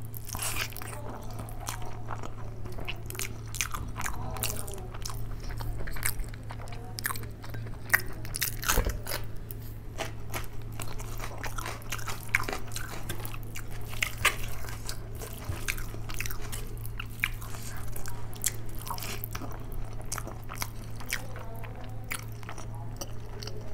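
Close-miked mouth sounds of a person eating rice mixed with dal and vegetable curry by hand: chewing with many small irregular clicks and smacks. A low steady hum runs underneath.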